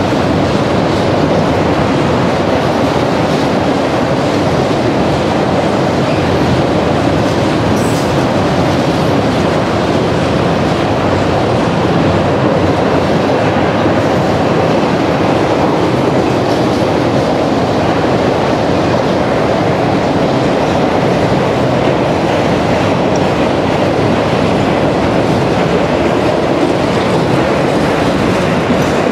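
Freight train of autorack cars rolling past, a steady loud rumble of steel wheels on rail with clickety-clack, unbroken throughout.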